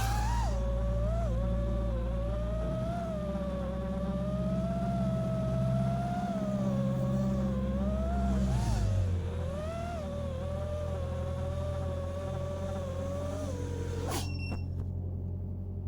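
5-inch FPV quadcopter's brushless motors whining, the pitch wavering up and down with the throttle. A sharp knock comes about 14 seconds in, and the whine stops after it.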